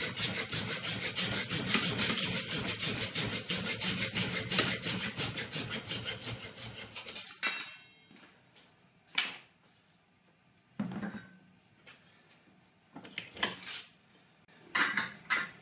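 Hacksaw cutting through the sheet-steel flange of steel trunking clamped in a bench vise: rapid, even back-and-forth strokes for about seven seconds, stopping with a short metallic ring. Afterwards a few separate clinks and knocks as the saw and the cut pieces are handled.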